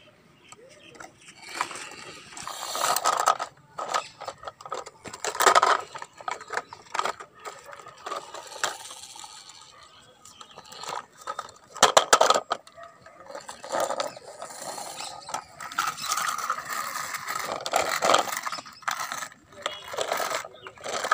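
Plastic toy vehicles being handled and set down on a concrete floor: irregular bursts of clattering, knocks, scraping and ratchet-like clicking of hard plastic parts and wheels.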